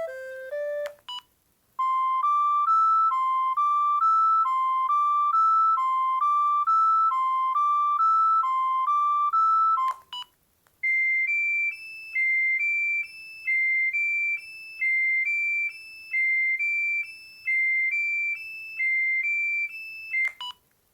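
Panasonic EB-GD93 mobile phone playing its monophonic ringtones one after another through its loudspeaker. A tune ends about a second in and a short key beep follows. A short three-note melody then repeats over and over for about eight seconds. After a pause, a higher repeating melody plays for about nine seconds, and another key beep comes near the end.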